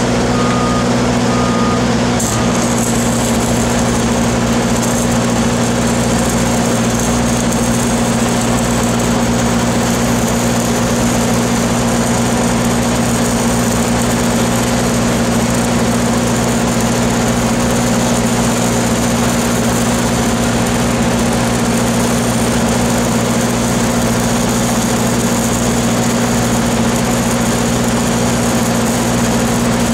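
Heavy machinery engines running steadily: a constant loud drone with several unchanging low tones, from the loader holding the pipe and the engine-driven welding machines. There is a slight shift in the sound about two seconds in.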